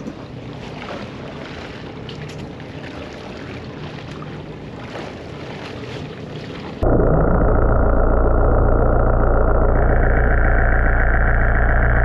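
Wind and water around a boat's stern, with a faint low engine hum. About seven seconds in it cuts abruptly to a much louder, muffled, steady low drone: the boat's engine and propeller heard through an underwater camera.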